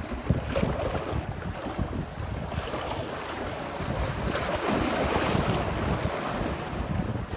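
Sea waves surging and washing among concrete breakwater blocks, with wind buffeting the microphone. The wash swells up about halfway through.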